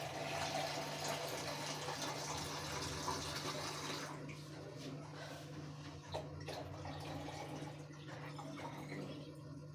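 Water being poured into a drip coffee maker's water reservoir, a steady rushing pour that stops about four seconds in, followed by faint clicks of handling.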